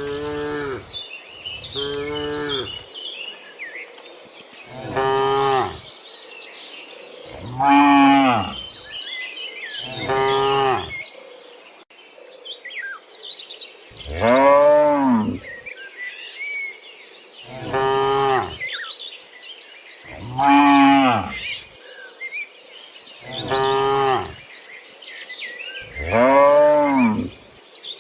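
Cattle mooing: about ten separate moos, each a second or so long and rising then falling in pitch, every two to three seconds. Insects and birds chirp steadily in the background.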